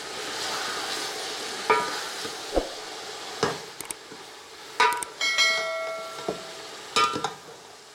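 Metal spoon stirring chicken and chopped tomatoes in a metal cooking pot over a faint sizzle, knocking against the pot about seven times; several knocks leave the pot ringing briefly, one for over a second.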